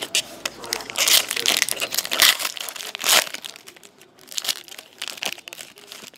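Foil wrapper of a Select hockey card pack crinkling as it is torn open by hand. The loud rustling and ripping comes about 1 to 3 seconds in, followed by lighter crinkling.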